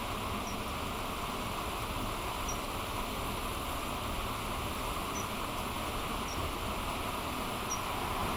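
Steady rushing outdoor background noise, with five faint, short, high-pitched calls of common kingfishers spaced a second or two apart.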